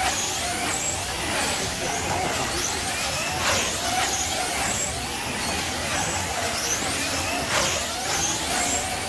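Slot cars racing on a large banked track: the high whine of their small electric motors rising and falling through the corners, with a rush of noise every few seconds as the pack sweeps past close by.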